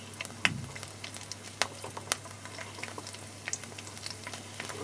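Garlic, cashews and whole spices frying in hot oil in a steel kadai: a soft sizzle broken by scattered sharp pops and crackles, over a low steady hum.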